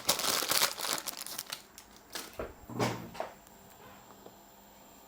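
Crinkling and rustling handling noise, like plastic or paper being handled, in bursts through the first second or so and again around three seconds in.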